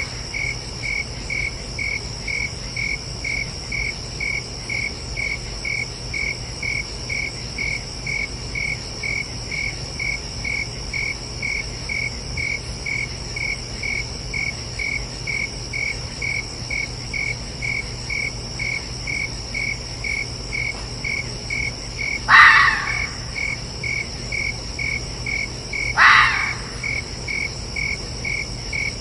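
Crickets chirping in an even pulse about twice a second over a steady high insect drone. Twice near the end, a few seconds apart, a fox gives a short loud call that slides down in pitch.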